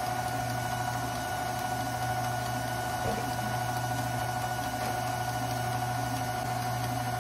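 KitchenAid Artisan stand mixer running at one constant speed, its wire whip beating an egg into thick butter-and-sugar cake batter in the stainless steel bowl. A steady motor hum with an even, higher whine above it.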